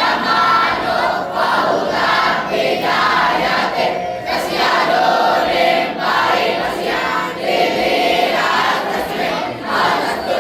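A large group of voices chanting or singing together, loud and unbroken.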